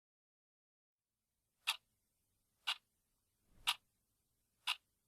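Clock ticking, four sharp ticks about a second apart starting after a stretch of silence.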